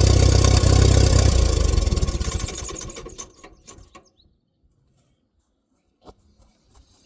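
1947 Allis-Chalmers WC's four-cylinder engine running steadily, then winding down and going quiet about three seconds in. A few faint clicks follow.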